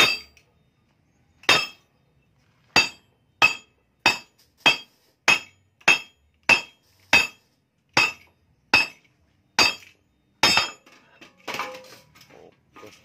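Steel motorcycle muffler canister, the stock Yamaha NMAX silencer, struck again and again with sharp ringing metal clanks to knock its internals loose. There are about fourteen blows, the first few more widely spaced and then a steady beat of under two a second, giving way to a short irregular metal clatter near the end as the insides come free.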